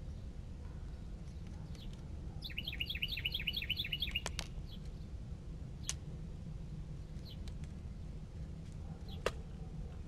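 A songbird sings one rapid run of about eight repeated high notes lasting under two seconds, a few seconds in. A few sharp clicks follow, over a steady low background rumble.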